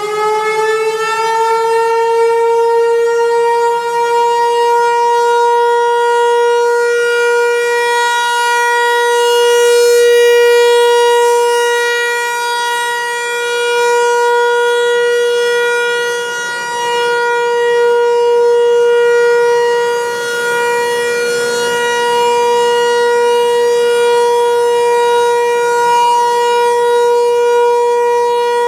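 Federal Signal 508-128 rotating outdoor warning siren sounding one steady tone at full pitch, just after winding up. Its loudness swells and dips every few seconds as it turns.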